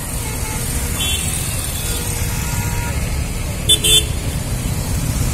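Road traffic of cars and motorcycles moving off through a junction, engines running in a steady low rumble. A vehicle horn gives two short toots a little under four seconds in.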